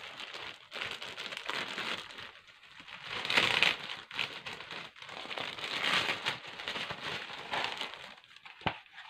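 Clear plastic polybag crinkling and rustling as hands pull a costume mask out of it, in uneven bouts, loudest about three and a half seconds in and tailing off near the end.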